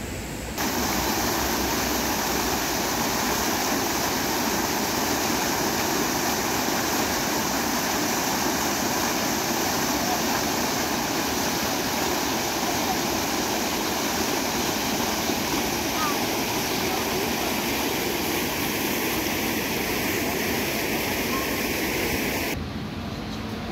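Fountain jets splashing into a basin, a steady rush of falling water. It starts abruptly about half a second in and cuts off shortly before the end.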